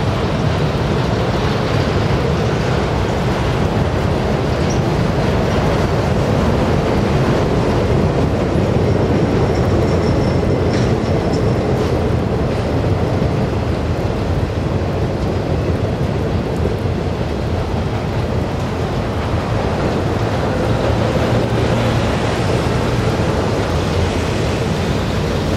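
Freight train of autorack cars rolling past, a steady rumble and clatter of steel wheels on the rails. A faint high-pitched tone rises out of it briefly about ten seconds in.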